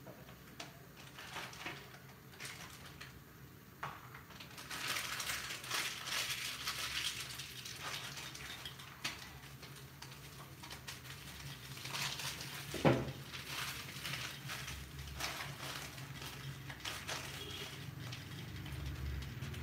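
Pots cooking on a gas stove: uneven crackling and small pops from food simmering under the lids, over a steady low hum. One sharp knock about thirteen seconds in.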